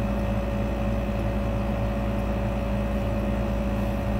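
A steady mechanical hum with a constant mid-pitched whine on top, unchanging in level or pitch.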